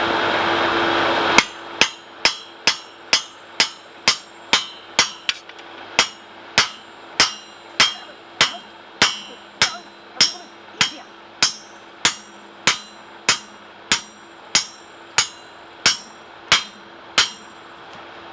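A steady rushing noise cuts off suddenly, then a blacksmith's hand hammer strikes hot 1080 carbon steel on the anvil about thirty times. The blows come steadily at roughly two a second, each with a short high ring.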